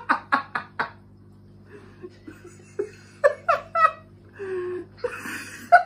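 A man laughing in short bursts, a quick run of chuckles at the start and another about three seconds in.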